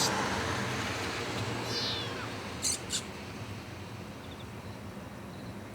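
A kitten meows once about two seconds in, a short cry falling in pitch. Two sharp clicks follow about a second later.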